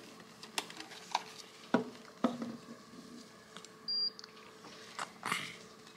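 Clicks and soft knocks of a newborn being handled on a hospital warmer bed, with a short grunt from the baby, and one short, high electronic beep about four seconds in.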